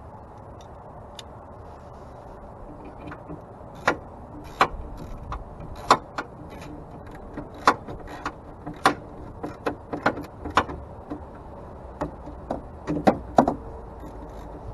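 Hand wrench and socket clicking and clinking on metal as bolts are driven in: a string of sharp, irregularly spaced clicks starting about three seconds in.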